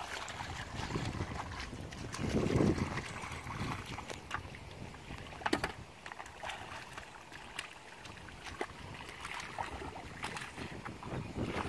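Shallow muddy water sloshing and splashing as people wade through it and grope in the mud by hand, with a few sharp slaps. Wind rumbles on the microphone, strongest about two to three seconds in.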